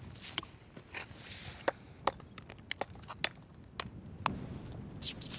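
Sharp, irregular clicks and chinks of shell being cracked and chipped open by hand on a rock, with a couple of short crunching scrapes.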